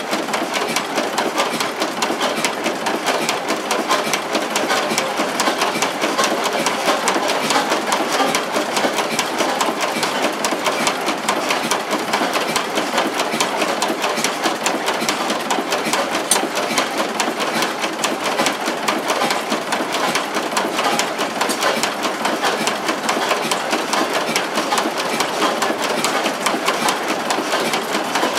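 Vintage Dutch-made industrial diesel engine running steadily, with a fast, even mechanical clatter from its valve gear and cylinders.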